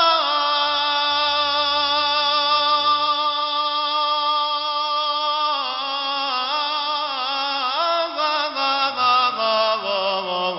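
Male voices chanting an Islamic devotional song (inshad), holding long notes with wavering, ornamented turns. The melody shifts to a new pitch about halfway through.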